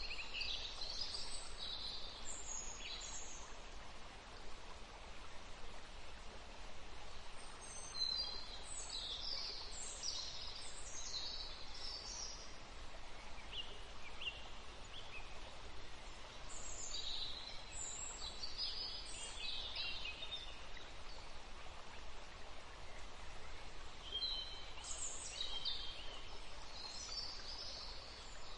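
Birds chirping in several short bouts over a steady background hiss of outdoor ambience.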